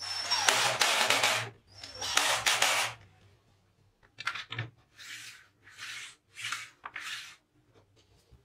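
Cordless drill driving two screws into an aluminium angle track, two loud bursts of about a second and a half, each opening with a brief high motor whine. Then a jigsaw's metal shoe sliding back and forth along the aluminium guide track, about five short, softer scrapes.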